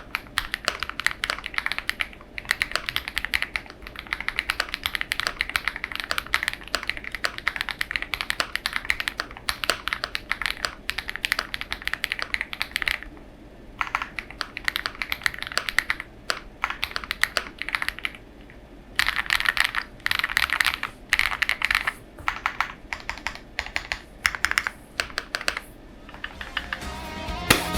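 Custom mechanical keyboard with lubed Huano Matcha switches, TX stabilizers, an FR4 plate, full foam and OXO keycaps, typed on in fast continuous runs. The typing stops briefly about 13 seconds in and again about 18 seconds in.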